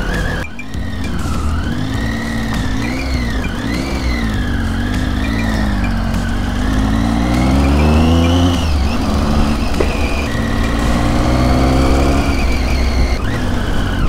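Triumph Tiger 800's three-cylinder engine pulling at low speed on a rough gravel track, its note rising and falling with the throttle, with a longer climb in pitch about six to eight seconds in. A steady low rumble runs beneath it.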